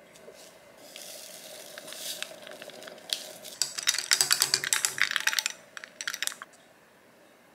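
A soft rustling hiss, then ice cubes clinking rapidly against a glass as a drink is stirred with a long stirrer.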